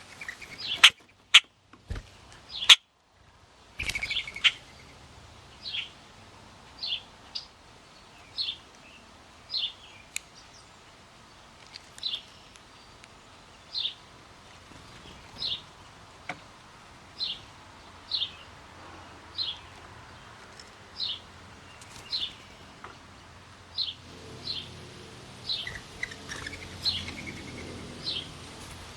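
A bird giving one short, high chirp about every second and a half, repeated steadily. A few sharp knocks or clicks sound in the first few seconds, and a low rumble comes up near the end.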